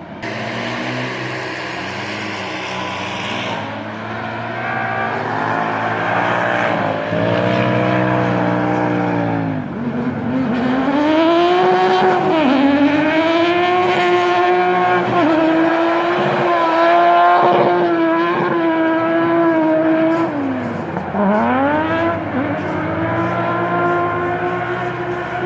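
Peugeot 3008 Trophée Andros ice-racing car's engine running hard, its pitch rising and falling again and again as it revs through the circuit. The pitch drops sharply a few times, about ten seconds in and again near twenty-one seconds.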